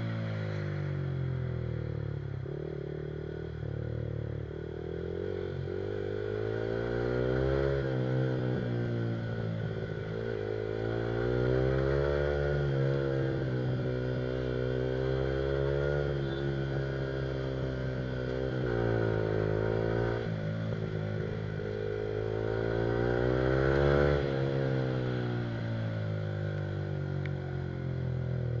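Yamaha R15 single-cylinder engine with an Akrapovic aftermarket exhaust, heard from on the bike while riding. Its pitch climbs and drops again and again as the rider accelerates and eases off, about every four seconds.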